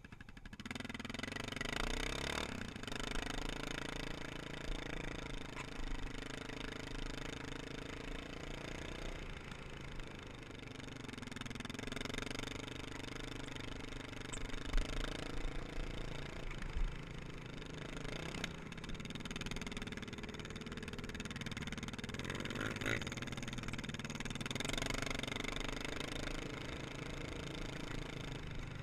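ATV engine under way, revving up and easing off as the rider accelerates and shifts, its pitch climbing and dropping several times. A couple of sharp knocks stand out around the middle.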